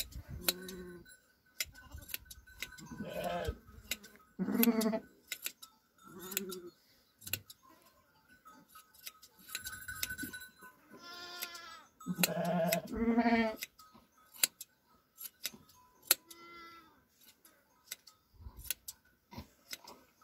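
Sheep bleating repeatedly, the loudest calls about four seconds in and again around twelve to thirteen seconds in, over sharp clicks of hand shears snipping through fleece.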